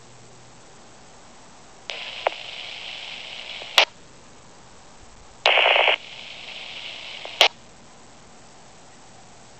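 Fire radio scanner receiving two short keyed transmissions with no words. Each opens with a click into a hiss of open carrier and ends in a sharp squelch-tail crack. The second opens with a loud half-second burst of noise.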